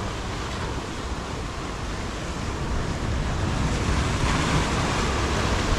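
Sea surf washing steadily, swelling a little about four seconds in, with wind rumbling on the microphone.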